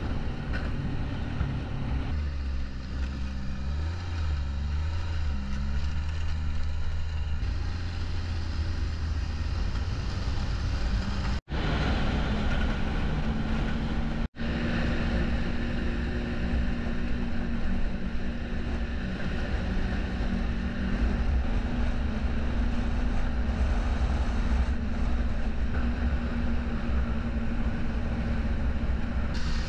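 Snowmobile engine running at riding speed under a steady rush of wind, its pitch wavering for a few seconds near the start and then holding steady. It cuts out twice, briefly, near the middle.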